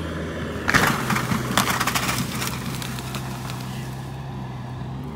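An engine running steadily, its pitch rising slightly about a second in. Over it, a sudden loud crash about a second in gives way to about two seconds of crackling and snapping wood and branches.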